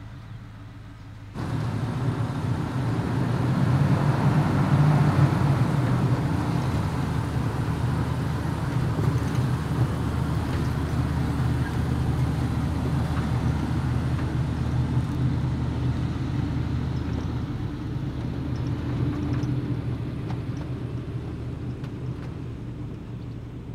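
First-generation Toyota Tundra pickup driving past on a dirt track, engine running with tyre noise. The sound comes in suddenly about a second in, is loudest a few seconds later, then fades slowly as the truck moves away.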